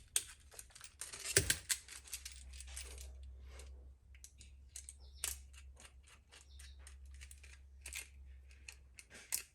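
Scattered clicks, knocks and rustles of objects being handled and moved about, with a low steady hum that starts about a second in.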